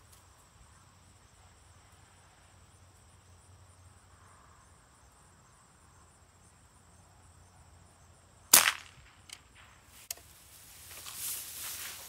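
A single sharp, loud gunshot about eight and a half seconds in, from a gun fired at pest birds, followed by two faint clicks.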